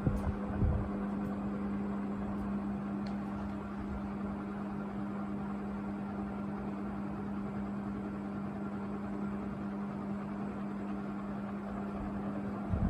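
National F-560A1 56-inch industrial ceiling fan running, its motor giving a steady, even hum over the rush of air from the blades. The hum is stable rather than the uneven hum a dimmer-type regulator gives, which the owner puts down to the remote control.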